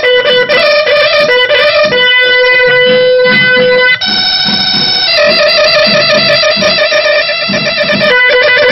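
Pepa, the Assamese buffalo-horn pipe, here built with twin horn bells, playing a Bihu tune in a bright, reedy tone. It runs through quick changing notes, with one note held for about two seconds in the middle and then a higher one held briefly.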